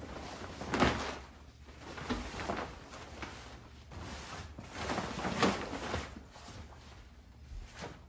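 Collapsible fabric-and-mesh pop-up pen being unfolded and pushed into shape: the fabric panels rustle and flap, with two louder swishes as the panels open out, about a second in and again about five seconds in.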